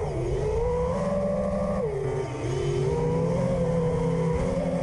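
FPV racing quadcopter's brushless motors and propellers whining, recorded by the onboard camera. The pitch sags briefly about two seconds in and climbs back as the throttle changes.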